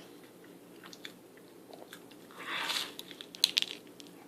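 A bite into a toasted grilled cheese sandwich, with a crunchy swell about two and a half seconds in, followed by a few sharp crunches of chewing.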